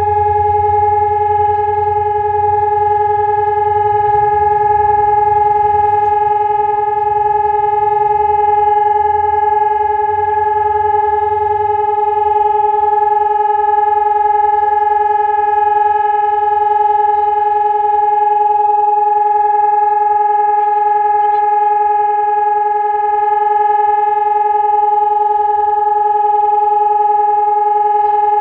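Telegrafia ESp 750 Maestro electronic siren sounding the continuous test tone of the Czech monthly siren test: one steady, unwavering pitch with overtones, with no rise or fall. A low rumble lies beneath it, strongest in the first few seconds.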